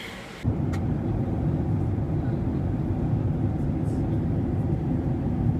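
Airliner cabin noise: a steady low rumble of engines and rushing air heard from inside the plane. It starts abruptly about half a second in.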